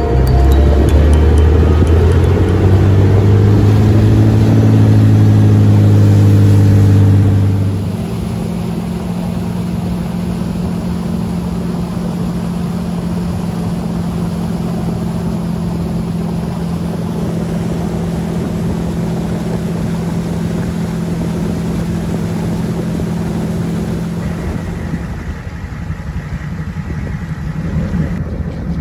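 Wakeboard tow boat's engine at high throttle, rising in pitch as it pulls a rider up out of the water, then easing back about eight seconds in to a steady cruising run, with the rush of water and wind underneath.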